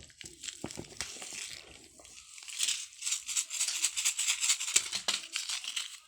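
Shoe-box packaging crinkling and rustling as it is handled, a dense run of fast crackles that grows busier after about two and a half seconds.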